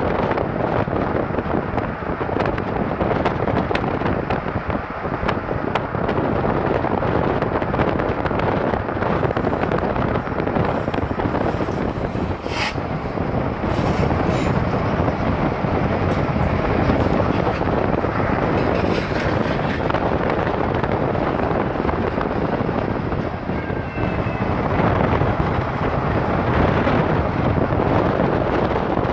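Steady wind and road noise from a moving car, mixed with a Kansas City Southern freight train's locomotives and gondola cars running alongside. One sharp click about twelve seconds in.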